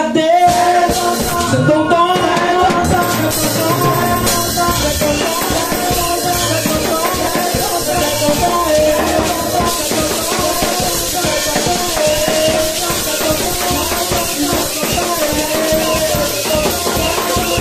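Lively African praise-and-worship music: a man singing into a microphone over a steady drum beat and a shaker.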